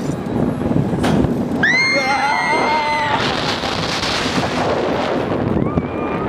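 Steel roller coaster car running on its track: a steady rumble with rushing wind as it drops about three seconds in. Two long high-pitched squeals sound, one just before the drop and one near the end.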